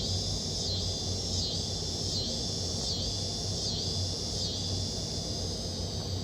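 Summer-night chorus of crickets: a dense, steady high-pitched trill that swells and dips about every three quarters of a second through most of the stretch, then runs evenly.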